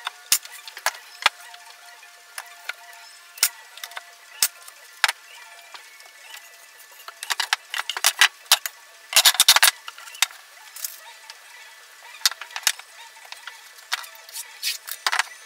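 Plywood parts and hand tools being handled and set down on a wooden workbench: a string of separate sharp knocks and clicks, with a quick rattling cluster about nine seconds in.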